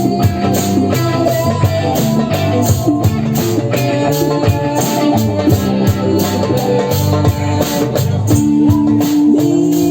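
Live band music: guitar notes over a drum kit keeping a steady beat.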